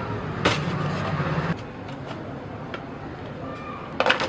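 Kitchen utensils knocking and clicking as chole is served onto a plate: one sharp knock about half a second in and a quick cluster of knocks near the end, over a steady low hum.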